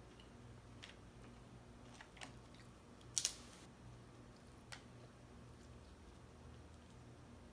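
Cooked crab leg shell being broken apart by hand: a few light clicks of shell, then one sharp, loud crack about three seconds in as the leg snaps.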